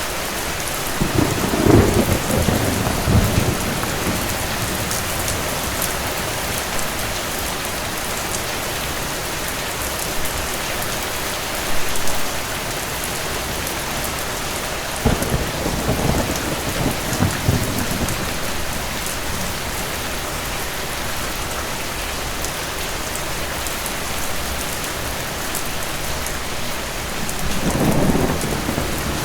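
Steady heavy rain with distant thunder rumbling several times: a long roll about a second in, a short one midway, a longer one a little after that, and another near the end.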